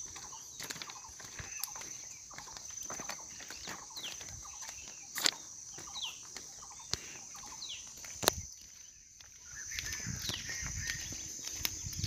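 Forest ambience: a steady high insect drone, with a bird giving short falling whistles every second or two. Scattered sharp clicks and crunches come from footsteps on the stony track ballast.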